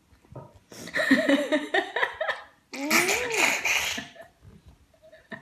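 Children laughing and giggling in two bursts, the first about a second in and the second around three seconds in.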